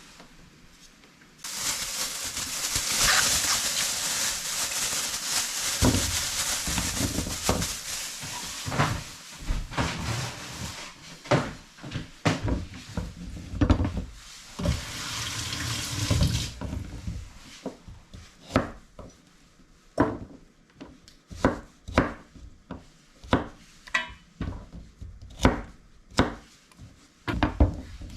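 Kitchen tap running into a sink for about fifteen seconds, with knocks and clatter in the sink. After the water stops, a run of separate sharp knocks follows, roughly one a second.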